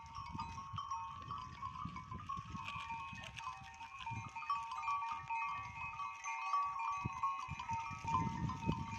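Mixed flock of goats and sheep grazing in dry brush, with low rustling and crunching. Over it runs a continuous high ringing whose pitch steps quickly up and down.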